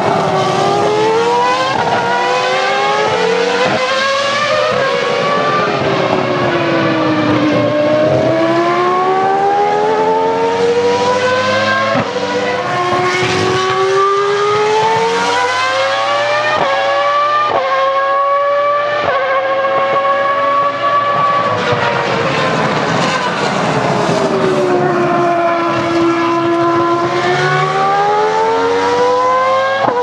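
Ferrari Formula 1 car engines at high revs under full-throttle acceleration, stepping up in pitch through quick gear changes, and dropping twice to a lower note as the cars slow and downshift before climbing again. Early on, two engine notes cross, as two cars pass.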